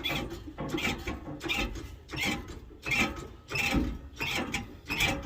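A car jack being pumped to lift the truck: a regular run of mechanical clicks and creaks, about two strokes a second.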